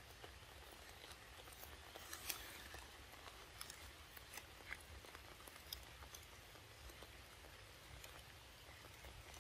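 Faint, irregular wet clicks and smacks of a young macaque biting and chewing a ripe mango, over a faint low rumble.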